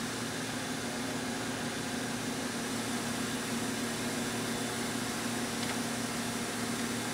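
Okamoto OGM-820UST universal cylindrical grinder running with its work head switched on: a steady electric hum carrying one low tone.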